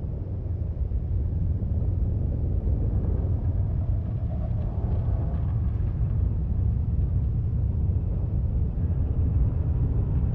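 Low, steady rumble of heavy machinery running in an underground rock tunnel.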